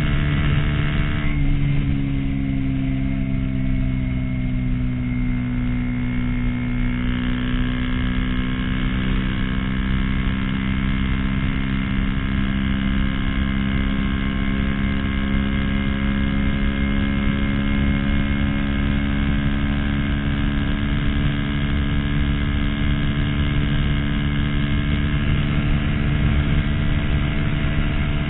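Honda CBR250R's single-cylinder engine running hard at high revs, with wind rush on the microphone. About a second in the engine note drops suddenly, as on an upshift, then climbs slowly and steadily as the bike builds speed toward its top end.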